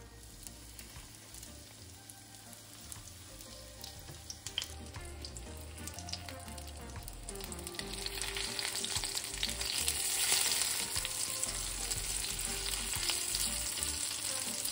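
Panko-breaded uku chunks frying in a pan of hot macadamia nut oil: a steady sizzle with small crackling pops that grows louder over the first ten seconds or so.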